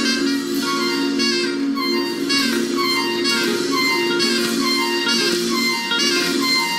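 Instrumental worship music: a wind-instrument melody moving over held chords.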